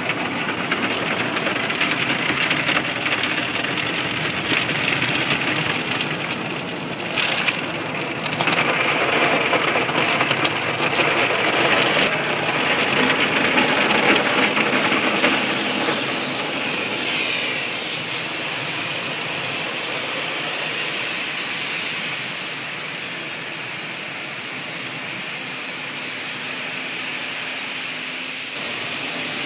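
Automatic car wash heard from inside the car: a steady rush of water spray and wash machinery on the car body. It is loudest partway through and settles to a quieter, even noise for the last several seconds.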